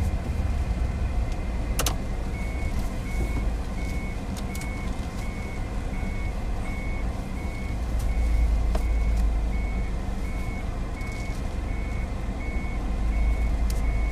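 A car's reverse-gear warning beep sounding inside the cabin: a high beep repeating evenly about twice a second, starting about two seconds in, over the low rumble of the engine. A single sharp click comes just before the beeping starts.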